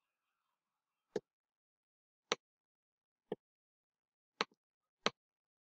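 Computer mouse button clicking five times, about a second apart, each a sharp short click; the fourth is followed closely by a fainter second click.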